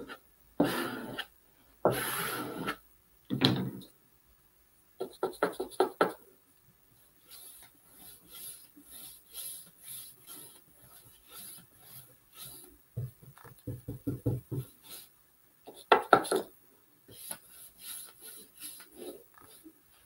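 Repeated rubbing and scraping strokes over decoupage paper glued to a glass window pane as it is smoothed down and brushed, going at about two strokes a second for much of the time, with a quick run of taps about five seconds in.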